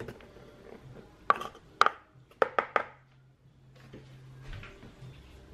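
A measuring cup knocking sharply against a Bosch stand mixer's bowl as bread flour is emptied into it: five knocks in about a second and a half, the first two the loudest, with a faint steady hum underneath.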